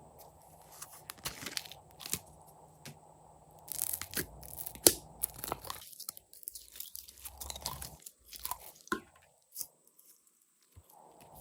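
Slime being mixed and squeezed by hand, making irregular crackling, popping clicks, with a short lull near the end.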